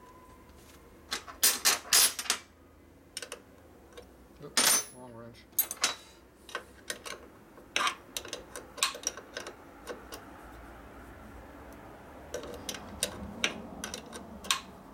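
A steel wrench and nut clicking and tapping against a starter solenoid's terminal post as the nut is run on and snugged: a string of sharp metallic clicks, loudest about two seconds in, then many lighter ticks.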